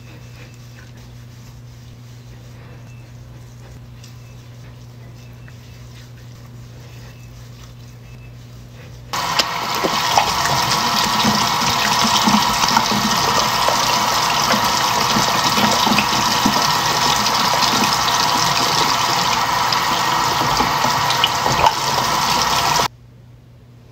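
A faint steady hum, then a bathroom sink tap suddenly runs hard, water rushing and splashing into the basin, for about fourteen seconds before it stops abruptly near the end.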